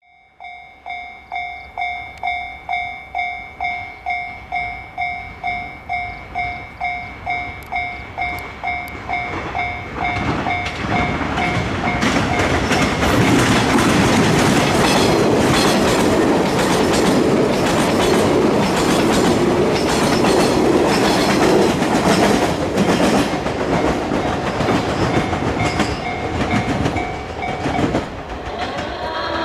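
Japanese level-crossing warning bell ringing in a steady pulse of about two strikes a second. From about ten seconds in, a six-car 381 series limited express electric train passes over the crossing: a loud rush with the clickety-clack of wheels over rail joints, which drowns out the bell until it drops away near the end.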